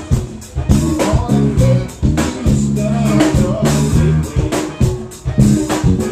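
Live New Orleans funk band playing: drum kit and congas with electric guitar, and a man singing the lead vocal.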